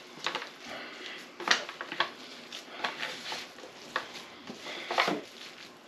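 Gloved hands kneading a raw sausage stuffing in a disposable aluminum foil pan: irregular squishing with crinkles and taps of the foil.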